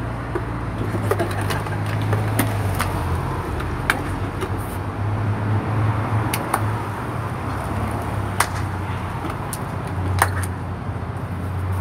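Steady low hum of street background with a handful of sharp, separate clicks and clacks of a plastic water bottle being grabbed from the dog's mouth and dropped on the pavement.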